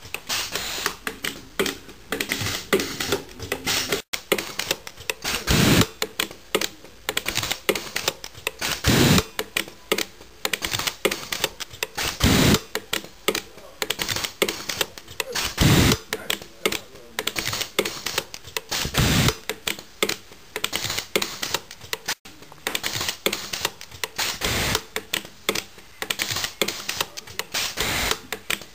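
SSG-V micro TIG welder firing arc pulses, heard as rapid, irregular sharp clicks. A heavier crack comes about every three and a half seconds.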